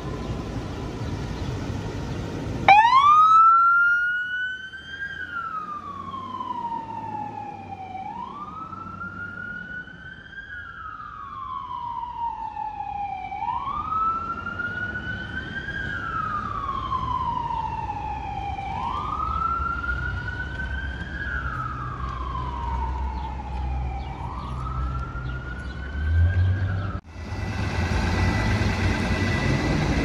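FDNY emergency vehicle's electronic siren on a wail, sweeping up quickly and then falling slowly, repeating about every five seconds. It starts about three seconds in after a low engine rumble and cuts off shortly before the end, giving way to street traffic and engine noise.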